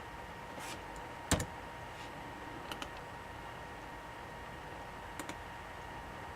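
A few sharp clicks from a computer mouse or keys, several of them in quick pairs, over a faint steady electrical hum and hiss; the loudest click pair comes a little over a second in.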